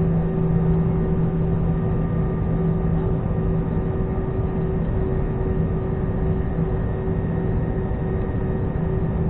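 Cabin noise of an Airbus A320-214 with its CFM56 engines at idle while the airliner taxis onto the runway: a steady drone with a low hum, holding level throughout.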